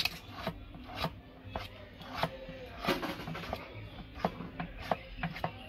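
A metal utensil mashing boiled yam and sweet potato in a stainless steel bowl, scraping and tapping against the bowl in irregular strokes, about two a second.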